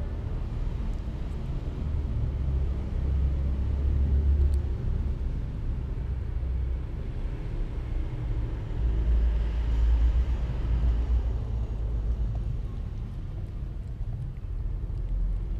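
Low rumbling noise that swells twice, about three seconds in and again around ten seconds in.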